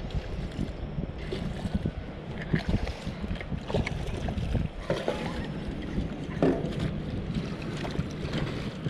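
Wind buffeting the microphone, with scattered splashes from a hooked black sea bream thrashing at the water's surface.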